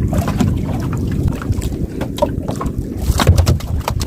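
Wind buffeting the microphone on an open small boat at sea, a steady low rumble, with irregular sharp knocks and splashes over it.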